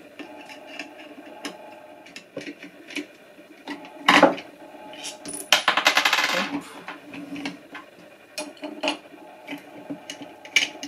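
Small clicks and scrapes of a Phillips screwdriver and hands working the plastic housing of an Oase Aquarius Fountain Set Eco pond pump as the four screws holding its volute are undone. A louder knock comes about four seconds in, and a short run of rapid fine rattling clicks follows around six seconds in.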